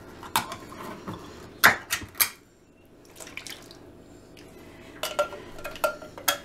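A tin can clinking and knocking against a metal cooking pot as diced tomatoes are tipped in. Scattered single clicks, the loudest pair about two seconds in and a quicker cluster near the end.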